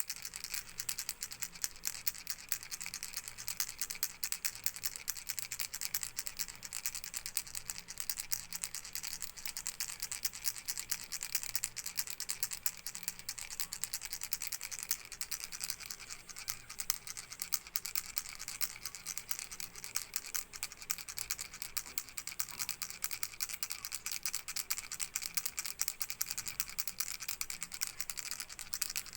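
Baby rattle shaken continuously, its pellets rattling in a fast, unbroken stream of clicks.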